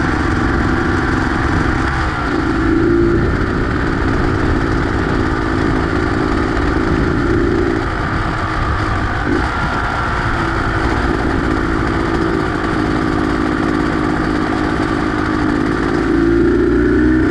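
Beta X-Trainer 250's two-stroke single-cylinder engine running under way, its revs rising and easing a few times, over a steady low rumble.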